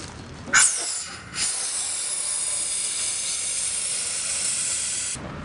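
Helium hissing out of a disposable balloon tank's nozzle into a latex balloon as it fills. A short burst about half a second in, then a steady high hiss from about a second and a half in that cuts off near the end.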